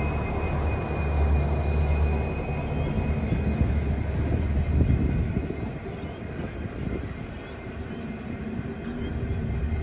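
Pacific National 90 class locomotive's EMD V16 two-stroke diesel running under power as it passes close by. About four seconds in, its deep drone gives way to the rumble of coal hopper wagons rolling over the rails. A thin, steady high whine sits over it throughout.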